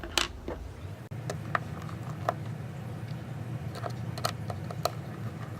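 Small hand tools clicking and tapping against a phone's metal and plastic parts during disassembly: one sharp click near the start, then several lighter, irregular ticks over a steady low hum.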